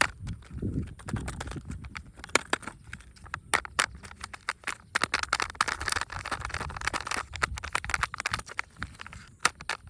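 Close-up ASMR handling of plastic surprise eggs and candy packaging: a quick, irregular run of sharp clicks and taps, with crinkly rustling from about five seconds in until near the end.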